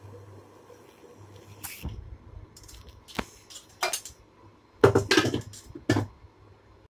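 Cooking oil pouring quietly into a kadai, then a handful of sharp knocks and clinks of kitchenware against the pan and stovetop. The loudest cluster comes about five seconds in.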